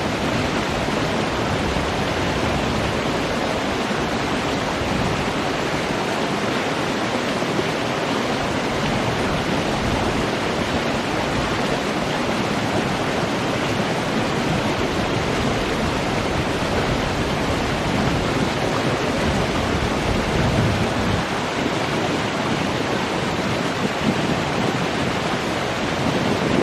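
Running water rushing steadily, an even hiss with a low rumble beneath.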